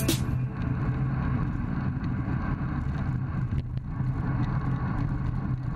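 Steady wind and road rumble picked up by a bike-mounted camera's microphone while riding a road bicycle, a low, even rush with no distinct events.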